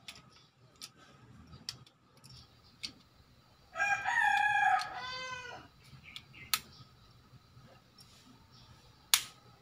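A rooster crowing once, about four seconds in, for nearly two seconds, dropping in pitch at the end. Around it, small sharp clicks as the plastic car key is handled and pressed together, the sharpest one near the end.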